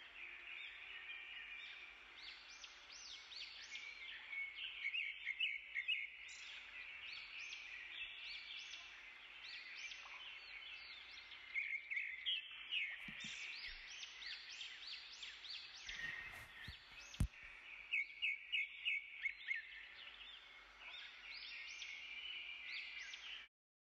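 Small birds chirping, many short overlapping calls over a faint background hiss, with one sharp click about two-thirds of the way through. The sound cuts off suddenly near the end.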